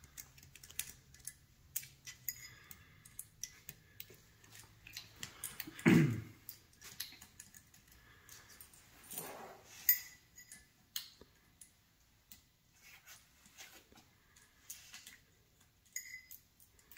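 Irregular light metallic clicks and clinks of small steel valve spring shims being picked out of a Subaru EJ25 aluminium cylinder head with a small magnet, with one louder knock about six seconds in.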